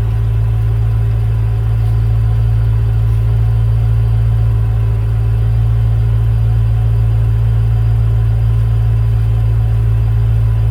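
BMW E9X M3's V8 engine idling steadily.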